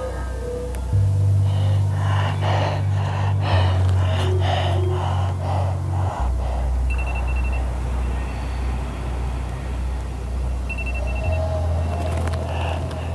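Low, droning background music that steps to a new bass note every few seconds, with breathy gasping sounds over its first half.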